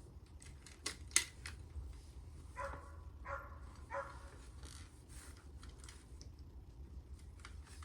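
Sparse clicks and clacks of plastic action-figure parts being handled and turned, with three short yelp-like sounds, evenly spaced, in the middle.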